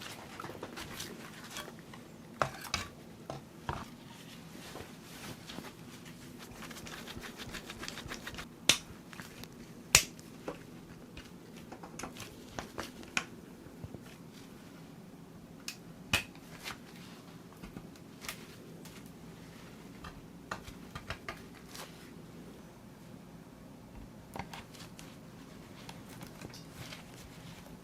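Scattered small clicks and taps of PC parts being handled and fitted together, irregular, with a few sharper knocks about nine, ten and sixteen seconds in, over a faint steady hum.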